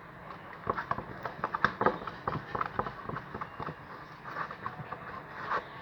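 Slime mixture being stirred in a bowl, giving an irregular run of quick clicks and taps as the borax makes it thicken and set.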